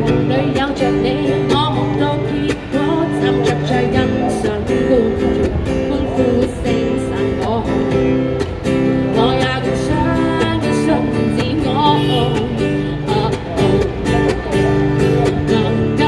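A woman singing to her own strummed acoustic guitar, the chords ringing on under the melody.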